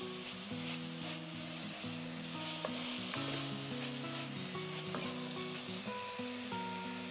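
Chopped onion and garlic sizzling in oil in a pot, stirred with a wooden spoon, over soft background music.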